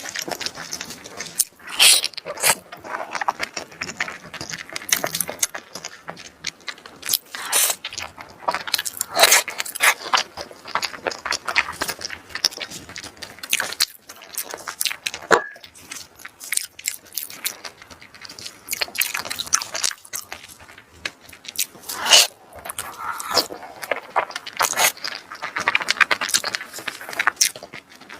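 Close-miked eating sounds: irregular biting, crunching and wet chewing clicks, with some scraping.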